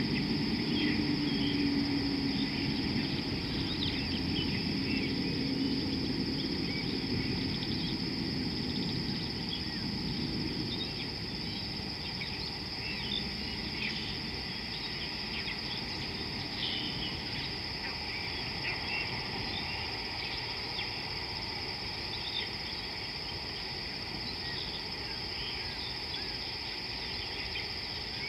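Outdoor ambience dominated by a steady, high-pitched insect chorus, with scattered short chirps over it. A low rumble underneath fades out over the first ten seconds or so.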